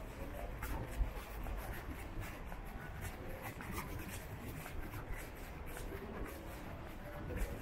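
Quiet city-street ambience with soft, repeated scuffing steps on paving stones and a low thump about a second in.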